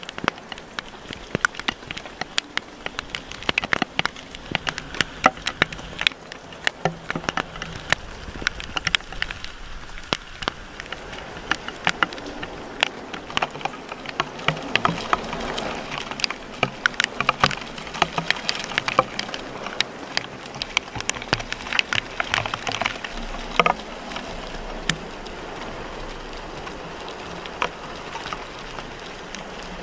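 Rain pattering on a sailboat's cockpit, with many sharp, irregular drop hits close to the microphone over a steady hiss of wind and rain.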